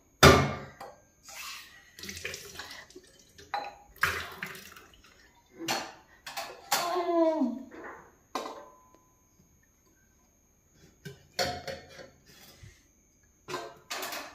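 Dishes being washed by hand: water splashing and utensils clattering in short bursts, the loudest right at the start. It stops for a couple of seconds past the middle, then starts again.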